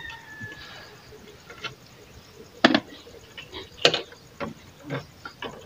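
Sharp clicks and knocks from a clear plastic bottle trap being handled, the two loudest near the middle. A long, steady animal call trails off about a second in.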